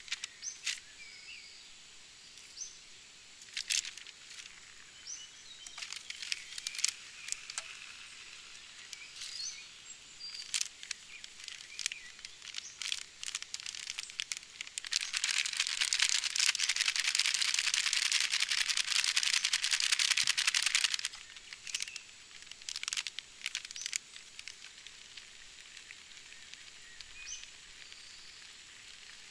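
Plastic and foil MRE ration pouches crinkling and rustling as they are handled and torn open, with scattered clicks and birds chirping now and then. A loud continuous rushing noise lasts about six seconds a little past the middle.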